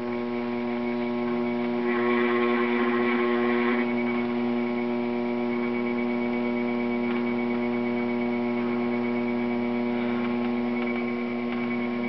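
Electric potter's wheel motor humming steadily as the wheel turns. There is a brief soft rubbing of wet hands on the spinning clay about two seconds in.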